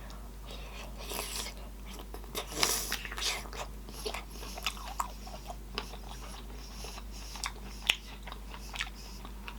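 Close-miked eating: a person biting and chewing sausage in butter sauce, with wet smacking and irregular sharp clicks, the sharpest one late on.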